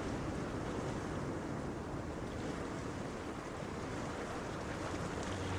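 Steady, even rushing noise with no distinct events: an ambient background sound effect.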